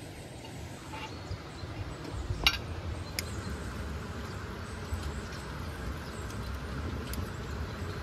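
Steady low outdoor rumble, with one sharp click about two and a half seconds in and a few faint ticks from utensils being handled.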